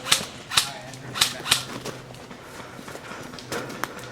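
Airsoft guns firing: four sharp cracks in the first second and a half, then a few fainter snaps near the end.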